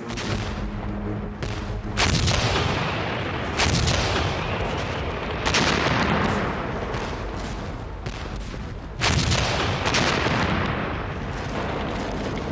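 Heavy artillery fire: several big blasts a couple of seconds apart, each trailing off in a long rumble, with smaller shots between them.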